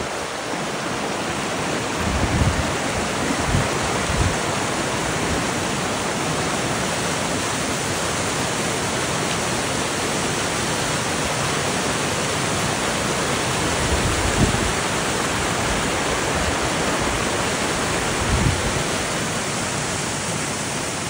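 Steady, loud rush of a waterfall, with a few brief low thumps on the microphone.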